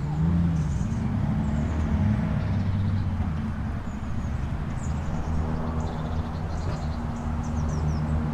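An engine running at low speed, its pitch wavering over the first couple of seconds and then holding steady, with birds chirping above it.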